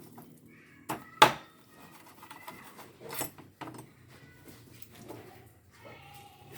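Dishes knocking and clattering: a few sharp knocks, the loudest about a second in, then softer clinks.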